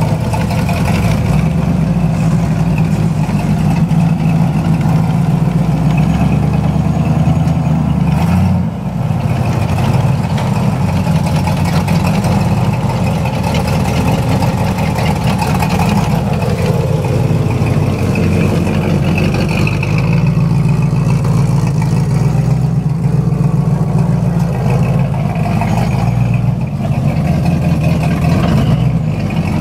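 Built 350 cubic-inch V8 of a propane-fed, Blazer-based rock-crawling truggie running steadily as the rig crawls over rocks, with a brief dip in the engine note about eight or nine seconds in.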